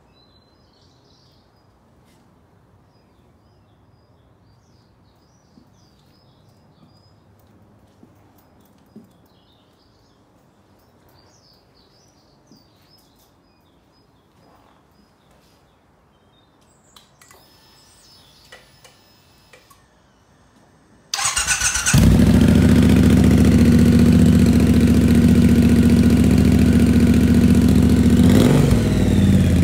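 Birds chirping faintly over a quiet background, with a few light clicks. About two-thirds of the way through, a Triumph Bobber's 1200 cc parallel-twin engine starts and idles loudly through a British Customs aftermarket exhaust, its pitch rising briefly near the end.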